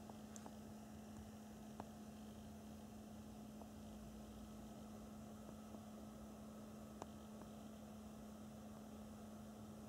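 Near silence: room tone with a steady low electrical hum and faint hiss, broken by two faint clicks, about two seconds in and about seven seconds in.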